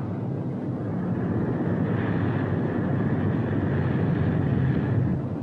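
Steady drone of a Boeing B-17 Flying Fortress's Wright Cyclone radial engines in flight, on three engines with number four feathered at reduced climb power. It gets a little louder and brighter from about two seconds in.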